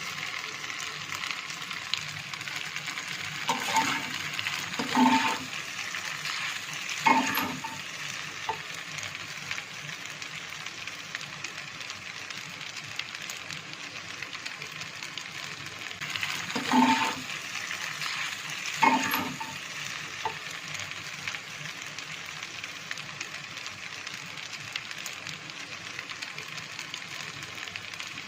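Boiled pasta frying with onion and tomato in oil in a kadhai, a steady sizzle, with a spoon stirring and scraping the pan in about five brief strokes, a few in the first third and two more past the middle.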